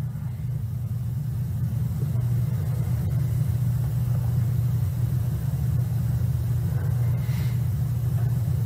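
A steady low rumbling hum that runs on without change, growing slightly louder about a second in.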